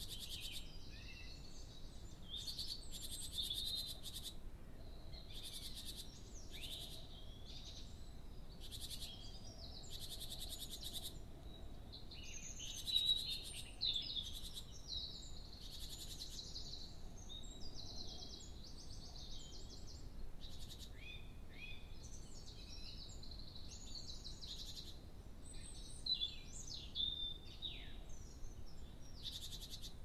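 Several songbirds singing at once, with overlapping trills, rattling phrases and short whistled notes, over a faint steady hiss.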